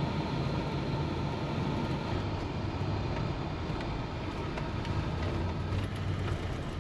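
Vintage Ford Econoline van driving: a steady low engine hum under constant road noise.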